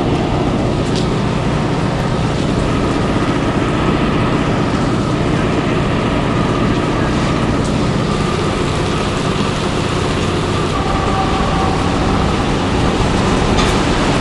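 Hurricane wind and heavy rain: a steady, loud rush of wind with driving rain.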